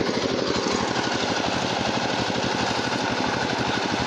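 Sawmill machine's engine running steadily, with a rapid, even pulse.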